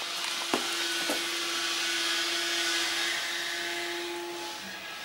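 Fixative spray hissing steadily as it coats a pencil sketch on canvas, with two small clicks in the first second; the hiss fades out near the end.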